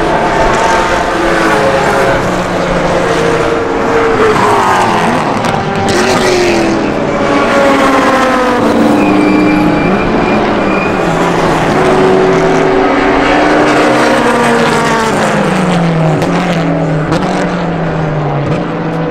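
Time-attack race car engines running on the circuit. Their pitch climbs and falls again and again as the cars accelerate, shift gears and pass, with more than one car heard at once.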